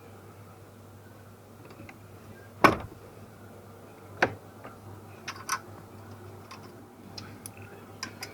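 Sharp clicks and knocks of hand tools and metal parts being handled during steering column repair work. The loudest knock comes about two and a half seconds in, a second one a moment later, then a few lighter clicks, all over a steady low hum.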